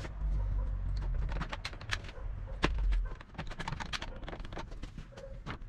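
Irregular plastic clicks and knocks from a one-handed quick-release bar clamp being squeezed and the particleboard strip being handled on the saw's board top, over a low rumble.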